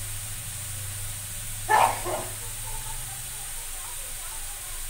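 A single short dog bark about two seconds in, the loudest sound, over a steady low hum that stops near the end.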